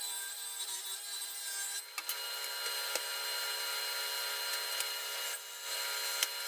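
Delta table saw running, its blade ripping along the edge of maple boards, a steady whine with cutting noise that dips briefly about two seconds in and again past five seconds.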